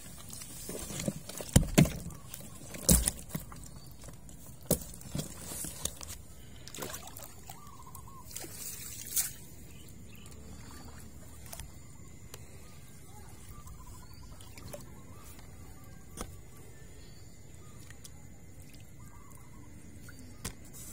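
A series of sharp knocks and clatters in roughly the first nine seconds, the loudest about two and three seconds in, then a faint steady outdoor background.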